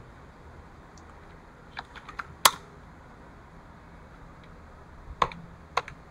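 Computer keyboard keystrokes typing terminal commands. A short run of key presses ends in one hard keystroke about two and a half seconds in, and a few more keys follow near the end.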